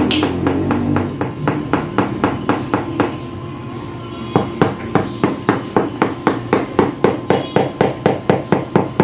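Rubber mallet tapping a large ceramic floor tile down into a fresh mortar bed to seat and level it: quick even knocks, about three or four a second, that pause briefly a little past the middle and then resume louder.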